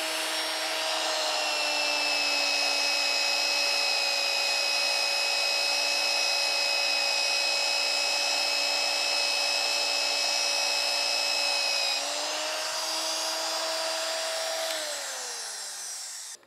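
Old magnetic-base drill (mag drill) boring a quarter-inch hole: a steady motor whine that sags slightly in pitch as the bit cuts and comes back up about twelve seconds in. Near the end the motor is switched off and winds down to a stop.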